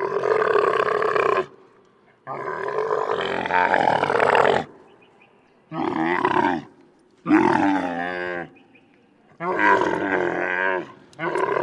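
Camel grunting loudly in a run of calls, each about one to two seconds long with short pauses between.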